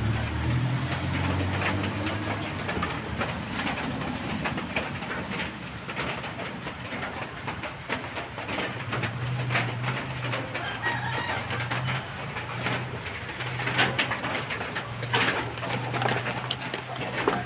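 A pigeon cooing, a low repeated coo in phrases near the start and again through the second half, over a steady hiss.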